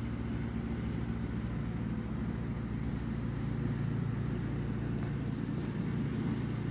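Many honeybees flying at the hive entrance, a steady low hum.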